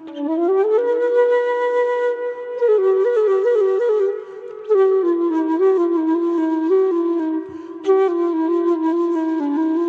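Solo flute playing a slow melody. It slides up into a long held note, then moves in small ornamented turns around lower notes, with short pauses between phrases.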